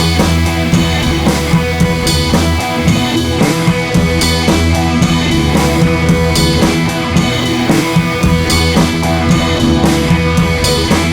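Background rock music with drum kit and guitar, a steady driving beat.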